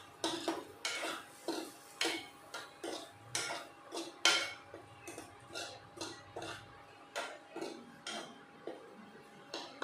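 A spoon stirring cubed potatoes in a nonstick pan, scraping and knocking against the pan in a steady series of strokes, about two a second.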